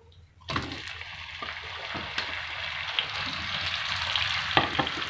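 Yogurt-marinated chicken going into hot oil and melted butter in a pan: a sizzle starts suddenly about half a second in and builds steadily, with a few sharp clicks.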